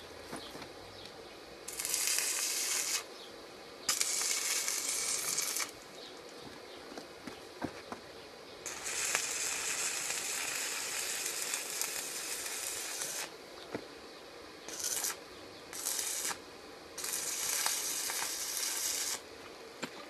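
Stick (manual arc) welding on a steel LPG tank: the electrode arc crackles and hisses in six separate runs, from a fraction of a second to about four and a half seconds long, broken by short pauses as the arc is stopped and struck again.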